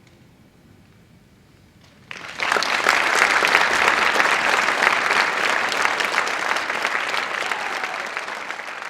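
Audience applause that breaks out suddenly about two seconds in after a short hush, holds steady, and tapers slightly near the end.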